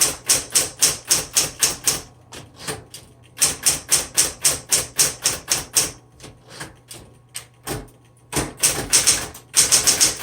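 1966 Smith Corona Coronet Electric typewriter being typed on: quick runs of sharp key strikes, about six or seven a second, in three bursts with short pauses. The steady hum of its electric motor runs underneath.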